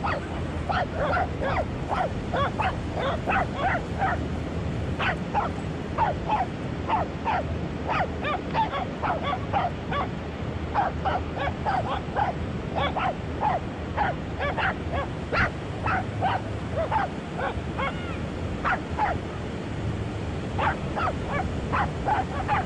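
Corgis barking and yipping in quick short barks, about two or three a second, with no real pause, over a steady low background rumble.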